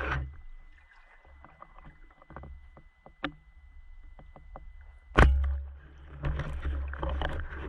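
Underwater sounds of a diver at work, recorded through a camera housing: low rumbling water movement with scattered small clicks and knocks. A faint steady high whine runs until a single loud, sharp knock about five seconds in, after which the rumbling movement is louder.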